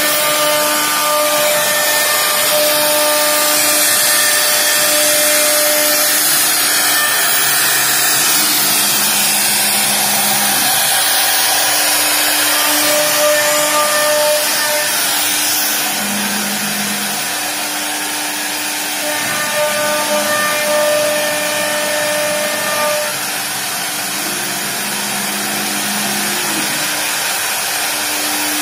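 CNC wood router running and cutting wood: a steady loud rushing noise from the spindle, with the whine of its drive motors starting and stopping every few seconds as the gantry moves.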